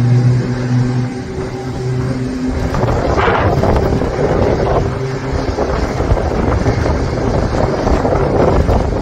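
Loud, steady rumble of a jet airliner's engines, with wind buffeting the microphone. A low hum in the rumble drops away after about two and a half seconds.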